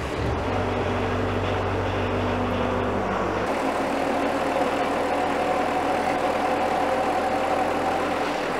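Bobcat S185 skid-steer's diesel engine idling steadily; the low hum drops a little about three and a half seconds in.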